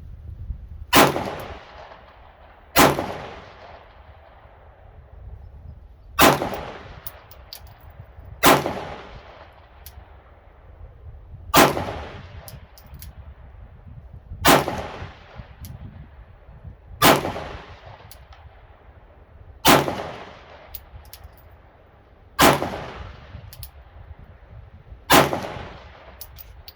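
Glock 19 Gen 5 9mm pistol firing ten single aimed shots about two to three seconds apart, each with a short echoing tail, cycling with no malfunction. Wind rumbles on the microphone throughout.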